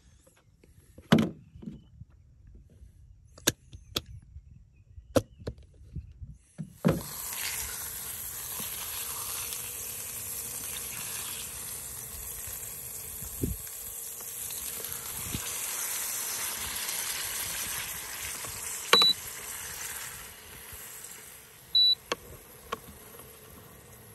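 A few sharp knocks and clicks, then from about seven seconds in a burger patty sizzling in hot oil in a ceramic-coated frying pan, a steady hiss that dies down near the end. Two short high beeps sound near the end.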